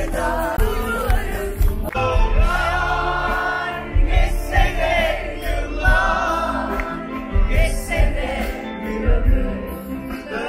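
Live pop music from a concert PA, heard from within the crowd: a band with a steady low drum beat and sung vocals, many voices singing the melody.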